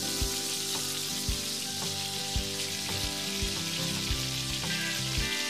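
Marinated fish pieces shallow-frying in mustard oil, a steady sizzle, with a few light knocks as the spatula turns the pieces in the pan.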